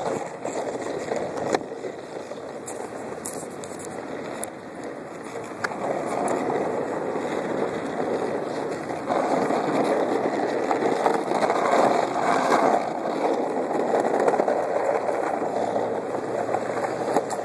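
Skateboard wheels rolling over asphalt in a steady, rough rumble that grows louder about 6 seconds in and again about 9 seconds in.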